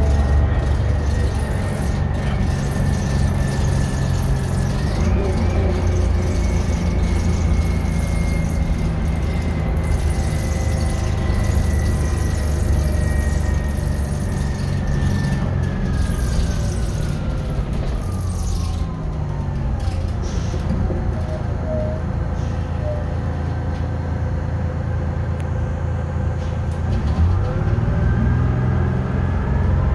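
Detroit Diesel 6V71N two-stroke V6 engine heard from inside the bus, with a high whine that falls steadily as the bus slows and the engine drops toward idle about twenty seconds in. Near the end the engine revs up and the whine rises again as the bus pulls away.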